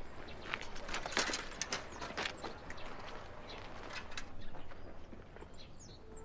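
Bicycle lifted off the ground and wheeled away, its metal parts rattling and clicking for about three and a half seconds, with a few short bird chirps.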